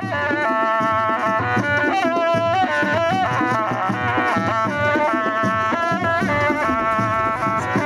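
Traditional music: a high wind instrument plays a melody of held notes, sliding between some of them, over steady drums and percussion.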